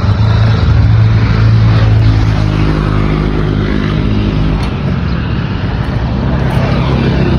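Simson S51's 50 cc single-cylinder two-stroke engine, fitted with a VAPE electronic ignition, running steadily at a low, even pitch.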